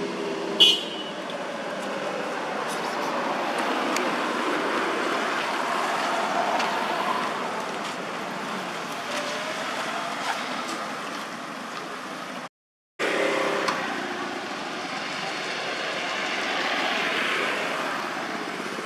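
Steady outdoor background noise that swells and fades twice, the way passing traffic does, with one short sharp high sound about half a second in and a half-second dropout to silence about two-thirds of the way through.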